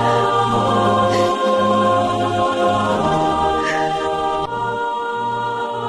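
Background music of sustained, choir-like chords held over a slowly changing low bass.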